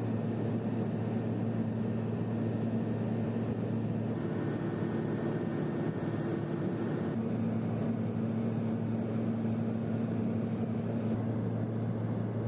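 Cabin drone of a Pilatus PC-12's single PT6A turboprop engine and propeller in cruise: a steady hum with a low tone and its overtone. A faint higher tone comes in for about three seconds midway, then drops out.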